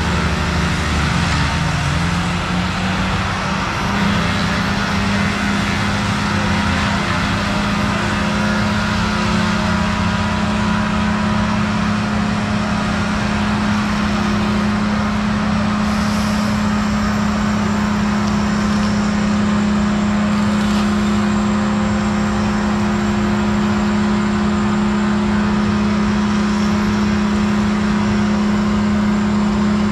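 Heavy logging machine's diesel engine running with a steady, even drone; its pitch wavers for the first few seconds and then holds.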